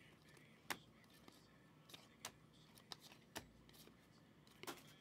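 Faint handling of a stack of glossy Panini Prizm trading cards, flicked through one at a time by hand: about six short, sharp snaps at uneven intervals.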